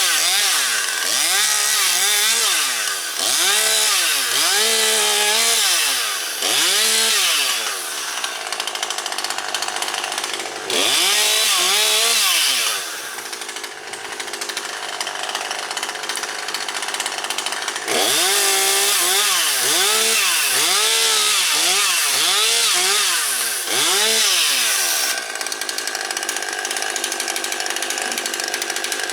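Husqvarna 540XP Mark III two-stroke chainsaw cutting up storm-downed branches. It is revved up and let back down again and again, about once a second. Around the middle it is held at full throttle for a couple of seconds, and it drops to a quieter idle in between and near the end.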